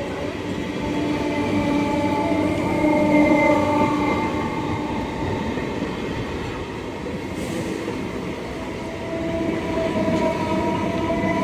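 Indian Railways ICF electric local train running past with a steady rumble, its horn sounding in long held tones that swell about two to four seconds in and again near the end.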